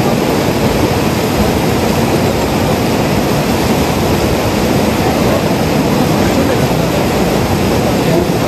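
Steady rush of a fast mountain river running white over rocks.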